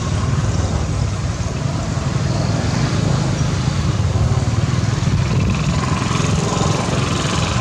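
Steady low rumble with a faint hiss above it, unbroken throughout.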